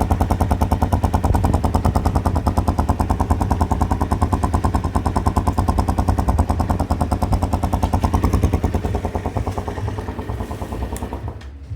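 Italika DM200 motorcycle's single-cylinder engine running with a rapid, even exhaust beat through a stock muffler punched with three small holes, which makes the note a little hoarser and deeper. It eases off and falls away near the end.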